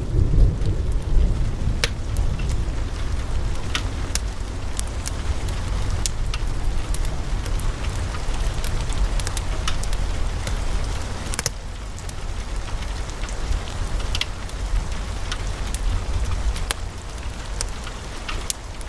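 Wood fire crackling in a fireplace: irregular sharp pops and snaps from the burning logs over a low steady rumble of the flames.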